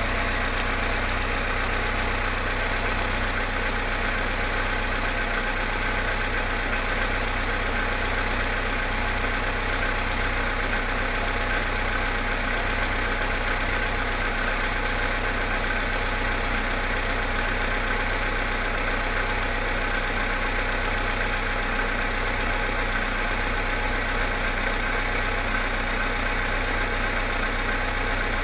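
Volkswagen Polo Sedan engine idling steadily after a cold start, with the engine knock the owner sets out to record.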